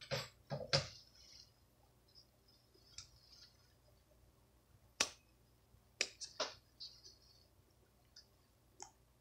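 Small scissors snipping through fabric to cut open a sewn buttonhole: several sharp snips at irregular intervals, with faint rustles between them.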